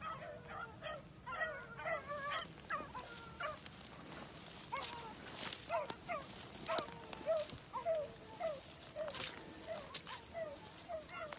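Rabbit-hunting dogs giving tongue on a rabbit's trail: a fast run of short, high yelps, about two a second, several overlapping in the first seconds. Dry grass rustles and brushes along with them as someone walks through it.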